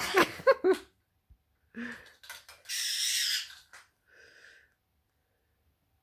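A short laugh-like voice at the start, then a sneeze-like burst of breath: a brief onset followed by a hiss lasting about a second, near the middle.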